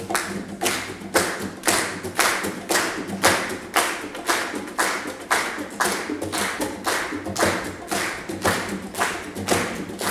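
Hands clapping a steady beat, about two strong claps a second with lighter claps between, over a softly played acoustic guitar.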